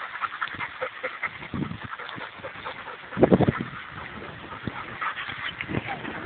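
Bernese mountain dog making short low noises in three brief bursts, the loudest about three seconds in.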